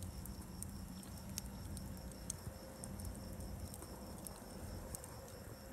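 Wood fire crackling, with scattered sharp pops from the burning logs and embers. A faint, steady, high pulsing trill runs behind it.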